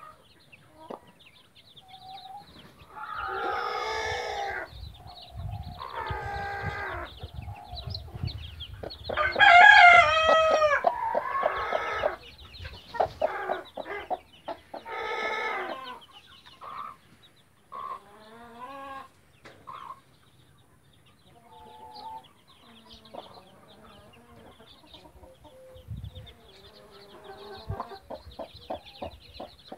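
A mother hen clucking and calling while her chicks peep continuously. A string of drawn-out chicken calls stands out, one to two seconds each; the loudest comes about ten seconds in.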